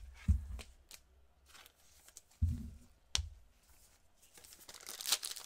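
A few soft knocks and a sharp tap as cards in hard plastic holders are handled. Near the end comes the crinkle and tear of a foil trading-card pack being opened.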